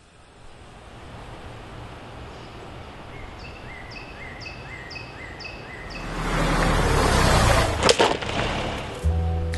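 Outdoor ambience with a bird repeating a short call about twice a second. About six seconds in, a car rolls up: tyre and engine noise swells loudly, and a sharp knock comes near the eighth second. Music begins just before the end.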